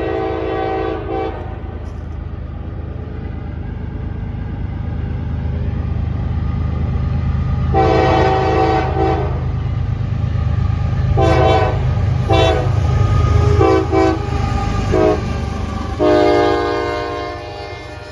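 Diesel locomotive air horn sounding a chord in a sequence of blasts: one ending about a second in, a long blast near the middle, a run of short blasts, then another long blast near the end. A low diesel and train rumble underneath grows louder before easing off at the close.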